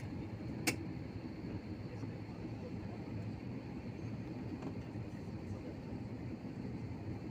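Steady cabin rumble of a jet airliner taxiing, its engines running at low power, with a faint steady high whine over it. A single sharp click sounds just under a second in.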